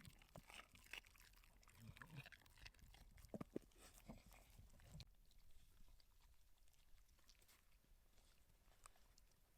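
Dogs eating buckwheat porridge with beef and carrots: faint wet chewing and crunching, busier in the first half and thinning out after about five seconds.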